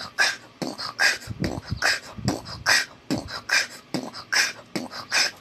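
A person beatboxing: a steady beat of sharp mouth-made snare and hi-hat sounds with deeper kick sounds among them, about two and a half hits a second.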